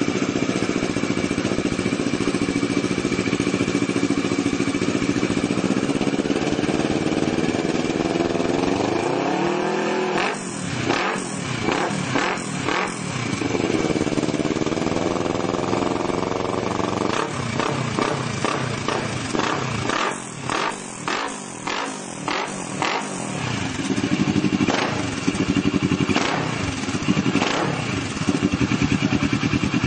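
Kawasaki ER-6n's parallel-twin engine running through a Coyote TRS aftermarket exhaust. It idles steadily, then from about ten seconds in is revved in rising sweeps and strings of quick throttle blips, and near the end it runs louder and steady.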